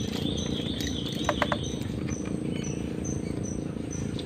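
Spinning reel being cranked while playing a hooked mangrove jack, over a steady low rushing noise. A few quick clicks come about a second and a half in, and a high chirp repeats evenly, about two to three times a second.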